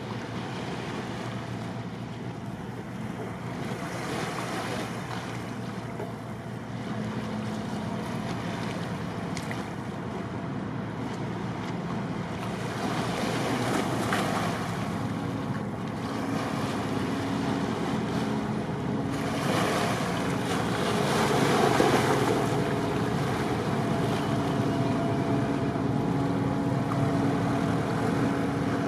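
Car ferry's engines running with a steady low hum, over rushing wind and water noise that swells twice, loudest about two-thirds of the way through.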